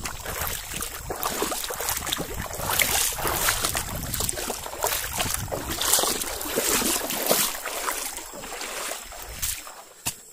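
Shallow rocky jungle stream, water rushing and splashing over stones, with a low rumble of wind on the microphone. It drops away suddenly near the end, leaving a sharp click.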